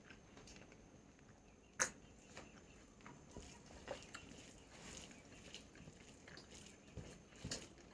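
A person eating a meal of chicken and rice: faint chewing and mouth clicks, with one sharp click about two seconds in and a few more near the end.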